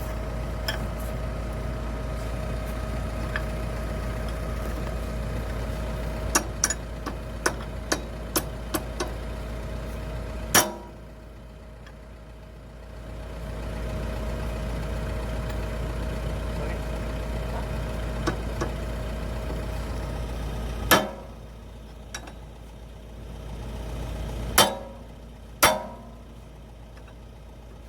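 Hitachi ZX210-5G excavator's diesel engine idling steadily, with a run of light metallic clicks and a few loud sharp knocks. After some of the knocks the engine sound drops away for a few seconds.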